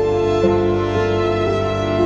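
Slow background music of long held notes, moving to a new note about every half second.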